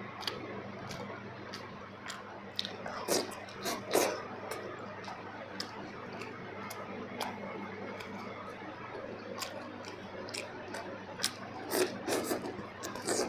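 Close-miked eating of a meal of kuzhi paniyaram with chutney and gravy: soft, wet chewing with scattered mouth clicks and smacks at irregular intervals. There are louder clusters about three and four seconds in and again near the end.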